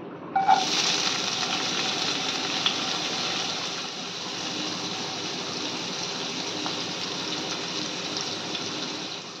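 Chopped onions hitting hot coconut oil in a kadai with a sudden loud burst about half a second in, then frying in a steady sizzle.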